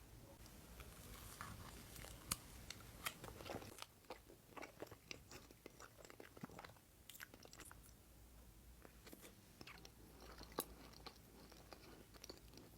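A person biting into and chewing a chocolate orange tart with a chocolate shell and mousse, close to the microphone. The sound is quiet, with irregular sharp crisp clicks scattered throughout.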